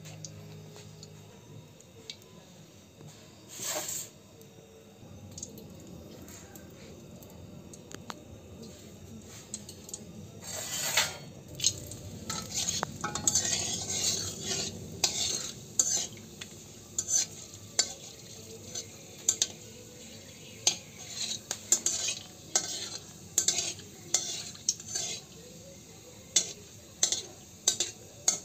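Whole spices sizzling in hot oil in a steel kadai, with a metal spatula stirring and scraping against the pan. From about ten seconds in, the spatula strikes the pan in many quick, sharp clicks.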